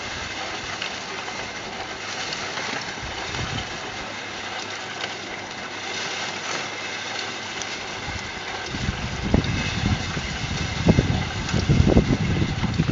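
Homemade trommel running, a steady rattling hiss of soil and small stones turning over in its mesh drum as earth is shovelled in. From about nine seconds in, wind buffets the microphone in gusts.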